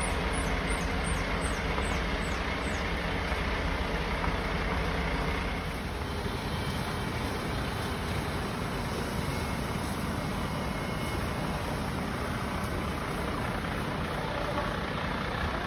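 Fire engines' diesel engines running steadily at a fire scene, a continuous low rumble.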